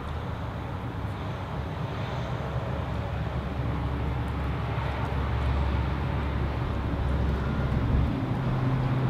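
A low, steady engine rumble that grows gradually louder and steps up in pitch near the end.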